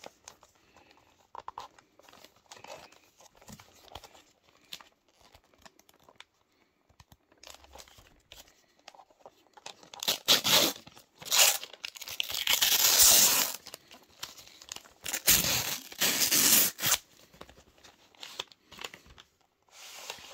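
Brown paper and cardboard parcel packaging being torn open by hand. Scattered soft rustles and crinkles for the first half, then several loud rips, the longest lasting over a second about two-thirds of the way through.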